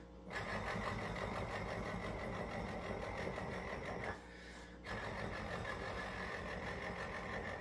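A man imitating by mouth an inline-six diesel idling, semi-truck style: a steady, fast pulsing held for about four seconds, a short break, then about three seconds more.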